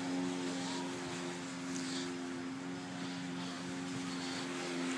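A steady, even-pitched mechanical hum of a running motor.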